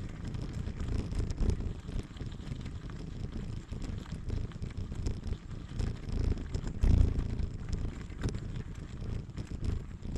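Wind buffeting the microphone of a rider on a bicycle, a fluctuating low rumble with scattered small clicks. There is a stronger gust about seven seconds in.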